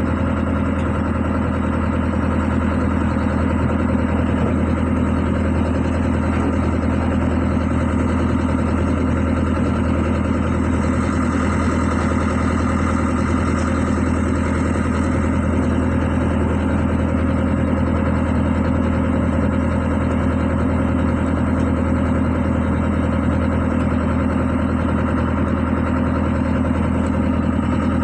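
Diesel engine idling steadily at an even, unchanging speed.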